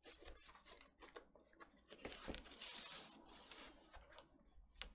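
Faint, intermittent rustling and sliding of paper and card as a vinyl record's printed insert and packaging are handled, with one sharp click near the end.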